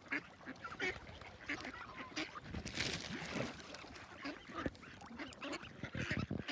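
A flock of domestic geese honking repeatedly, many short calls overlapping one another, with a brief rush of noise a little before the middle.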